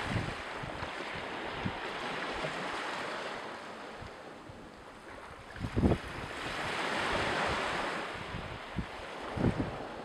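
Wind buffeting an outdoor microphone over a rushing noise that swells and fades every few seconds, with a few sharp low thumps about six and nine seconds in.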